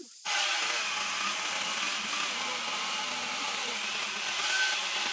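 Handheld power saw starting about a quarter second in and running steadily as it cuts into the wood of a fallen tree's roots.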